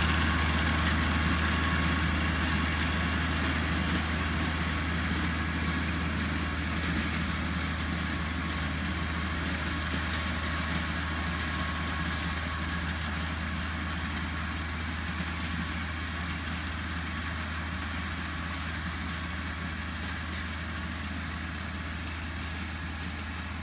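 Tractor engine running steadily while powering a five-belt sesame reaper through the crop. It grows gradually fainter as the tractor moves away.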